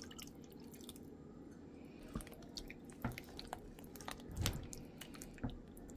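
Beef broth poured into meatballs in thick gravy in a slow cooker crock, then stirred with a spoon: faint wet squelching with a few soft knocks of the spoon.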